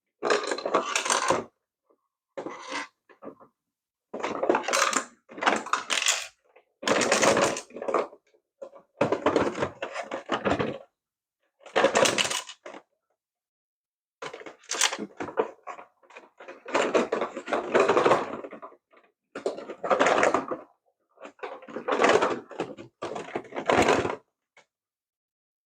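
Small plastic parts of a toy RC car being handled and clicked together: about a dozen short bursts of clattering and rattling, separated by complete silence.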